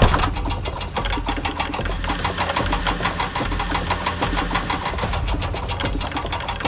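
Small motor running with a rapid, steady mechanical clatter over a low hum.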